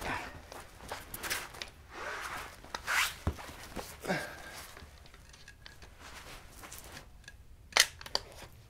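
Rustling and scuffing of clothes against a shooting mat as a shooter moves from sitting to lying prone, with knocks from a rifle and its bipod being handled and set down. A single sharp click comes near the end.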